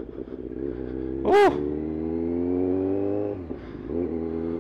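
Motorcycle fitted with an aftermarket exhaust accelerating, its engine note rising steadily for about two seconds and then falling away as the throttle closes. A brief loud sound comes just before the rise.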